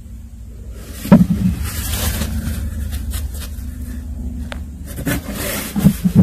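Low rumble of phone microphone handling noise, with two loud bumps, about a second in and again near the end, and rustling and scraping of cardboard as a hand reaches into a cardboard box.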